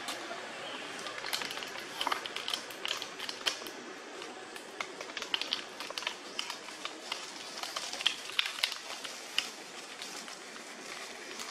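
Irregular sharp clicks and crackles of dry leaf litter and twigs being stirred by macaques moving and handling things on the forest floor, a few louder snaps standing out.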